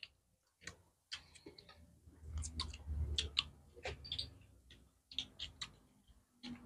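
Close-up eating sounds: chewing on roast duck, with scattered small wet clicks and smacks from the mouth and a soft low rumble in the middle.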